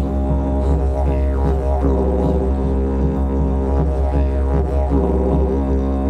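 Didgeridoo played as a low, continuous drone, its tone swept up and down in a repeating rhythmic pattern.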